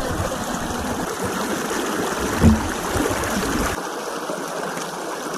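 Hill stream water rushing steadily over rocks, with one brief low thump about two and a half seconds in.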